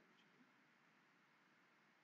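Near silence: faint microphone hiss in a pause between spoken sentences.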